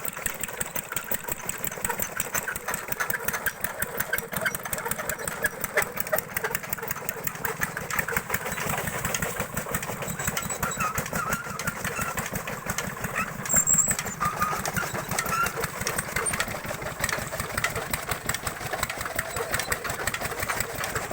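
Engine of a fodder-cutting (chaff cutter) machine running steadily with a fast, even beat.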